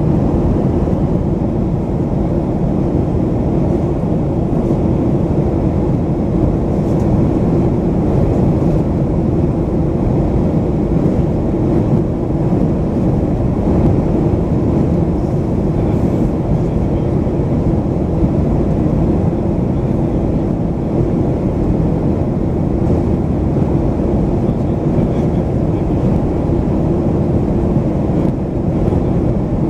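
Steady cabin noise inside a Boeing 737-500 in flight: a constant low hum from its CFM56-3 turbofan engines and the air rushing past the fuselage, unchanging throughout.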